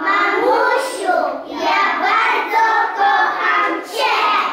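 A group of young children singing together in unison, with held notes.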